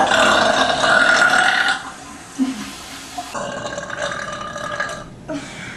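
A woman burping: one long, loud burp of about two seconds, then a second, quieter long burp starting about three seconds in.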